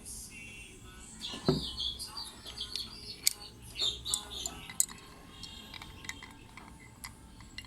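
Small metal parts of a Blow Mini 9 mm blank pistol clicking and scraping as the gun is taken apart by hand, with a few sharper clicks.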